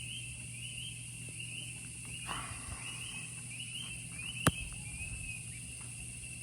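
Rainforest wildlife sounds: a short chirping call repeated roughly twice a second, which stops about five seconds in, over a steady high-pitched hiss. A single sharp click comes about four and a half seconds in.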